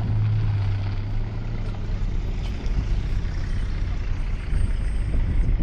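Vehicle engine running slowly: a low engine hum that eases off about a second and a half in, over a steady low rumble.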